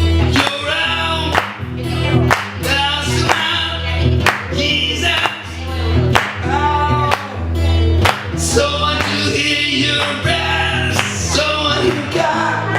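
A live band playing a song, with singing over bass and a steady beat.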